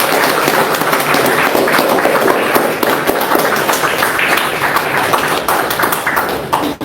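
Congregation applauding: many hands clapping in a dense, steady patter that cuts off suddenly near the end.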